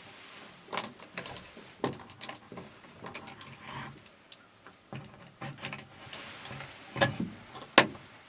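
Handling noise inside a hunting blind: a string of clicks, knocks and light scrapes, with two sharp knocks near the end the loudest.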